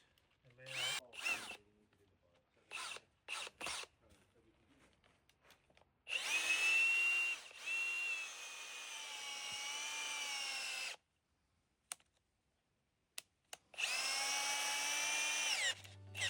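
Power drill with a countersink bit boring pilot holes: a few short trigger bursts, then two longer runs, the first about five seconds with the motor pitch wavering slightly under load, the second shorter near the end.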